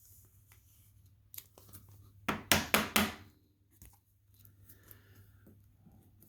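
Trading cards and their plastic packaging being handled: quiet rustling with one brief cluster of sharp scraping crinkles about two and a half seconds in.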